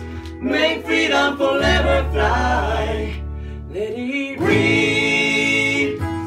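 Bluegrass band playing live: several voices singing together over mandolin and acoustic guitar, closing on a long held chord near the end.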